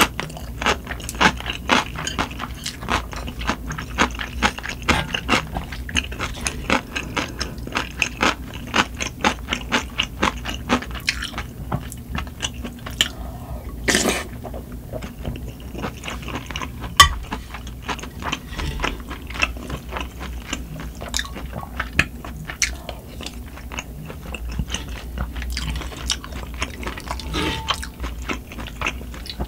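Close-miked eating: rapid wet chewing of spicy sundae gukbap and kimchi, with a sip of broth from a spoon about 14 s in and a single sharp clink near 17 s. A steady low hum from wind and rain runs underneath.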